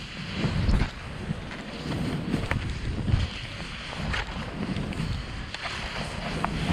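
Wind buffeting the pole-mounted camera's microphone, over the hiss of a snowboard carving through powder snow, swelling and easing with the turns.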